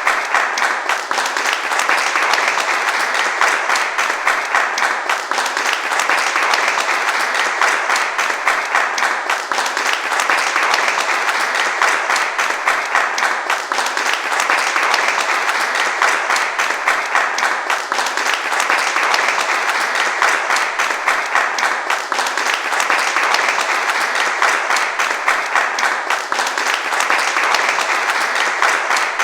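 Continuous applause, many hands clapping densely and steadily, easing slightly and swelling again about every four seconds.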